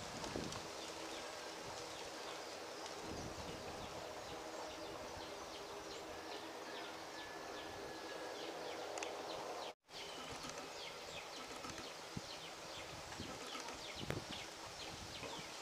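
Evening outdoor ambience of wildlife chirping rapidly and continuously, with a faint steady low hum underneath. The sound drops out for an instant about ten seconds in.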